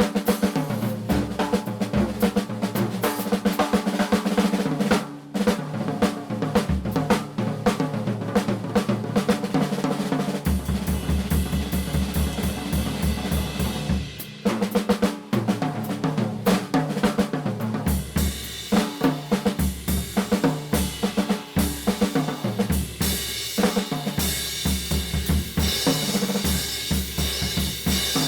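Drum kit played hard in a busy, aggressive rhythm of snare, bass drum and hi-hat, over a steady low drone. A deep bass layer comes in about ten seconds in, drops out briefly, then returns, and the cymbals grow busier in the second half.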